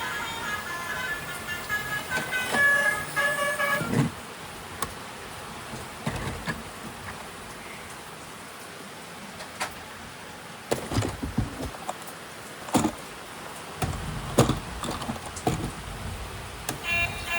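A short electronic tune of bright beeping notes for about four seconds, then scattered clicks, knocks and a few dull thumps of plastic toys and packaging being handled.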